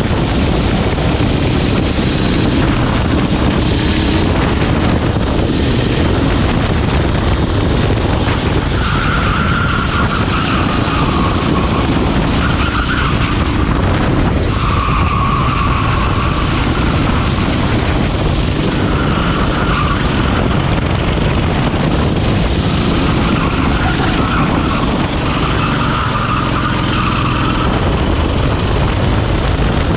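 Rental racing kart's engine running at race pace, heard onboard, with tyres squealing in several short bursts through the corners.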